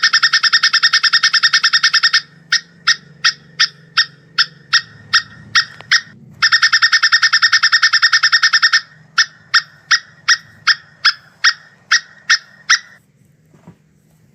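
Plantain squirrel giving its mating call: a fast chattering rattle of about two seconds, then a run of separate sharp chips about two or three a second. The pattern repeats once, and the calls stop near the end.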